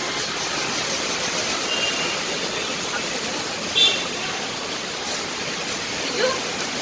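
Heavy rain and gusting wind making a steady, loud rush, with a brief high-pitched toot about four seconds in.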